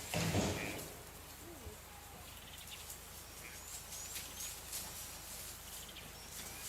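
Quiet outdoor bush ambience with a few faint, brief bird chirps, after a short louder low rumble in the first second.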